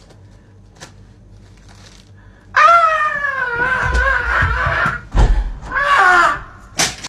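A person's long, high-pitched wailing cry starting about two and a half seconds in and falling slightly, with heavy thumps as he jumps up off the bed, then a second shorter cry near the end.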